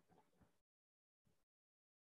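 Near silence: the recording is gated to dead quiet between spoken phrases.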